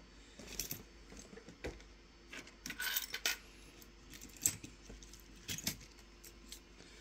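Small hard objects clicking and rattling together as they are handled and moved about: a scattering of light knocks and short clinking runs, the busiest about three seconds in.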